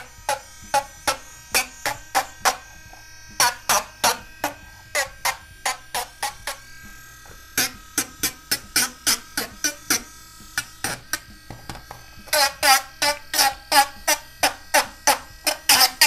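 Dremel rotary tool running, its bit scraping and cutting into a die-cast metal toy trailer in quick repeated short strokes, with a few brief pauses.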